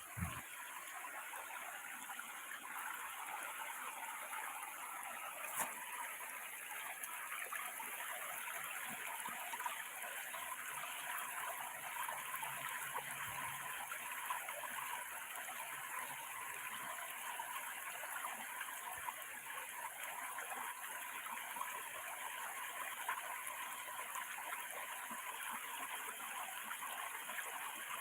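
Water flowing steadily over a small weir, a continuous even rushing and splashing.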